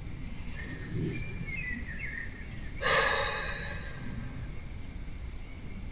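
Songbirds calling outside, thin high whistled notes and short chirps in the first two seconds. About three seconds in, a person sighs, a short breathy exhale close to the microphone.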